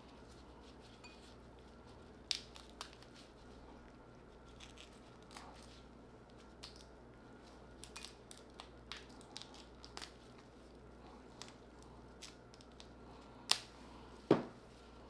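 Alaskan king crab leg shell being cracked and pulled apart by gloved hands: scattered small cracks, snaps and clicks, with two louder cracks near the end.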